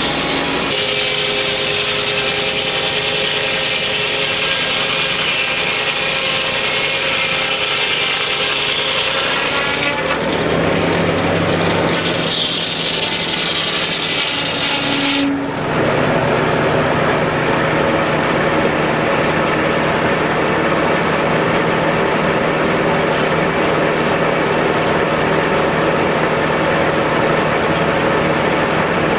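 Large circular sawmill blade, driven off a tractor's PTO, sawing through a log with a high steady whine. About fifteen seconds in the cut ends and the blade runs on free with the tractor engine steady underneath.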